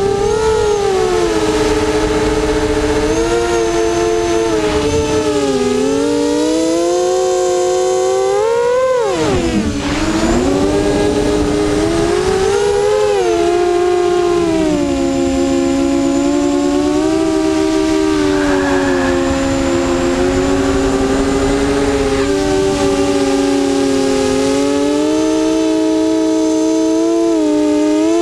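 Drone's electric motors and propellers whining steadily, the pitch rising and falling with the throttle, with a sharp rise and then a deep drop about nine seconds in.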